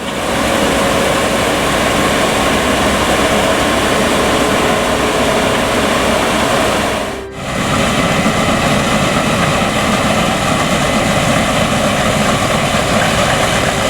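Case IH 7240 Axial-Flow combine harvester running steadily at work, a dense mechanical drone with a few steady whining tones over it. The sound drops out briefly about seven seconds in.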